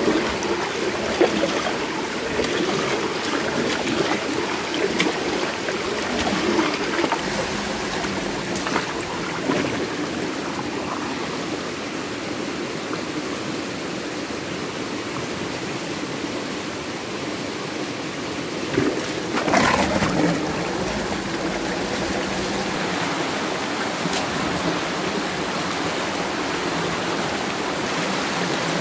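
Stream water rushing and swirling steadily through a small stone basin, with a few brief knocks and splashes from work in the basin, the loudest about twenty seconds in.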